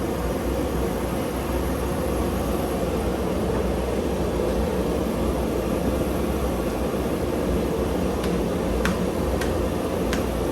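A steady low rumble of mechanical or air noise, with a few light clicks near the end.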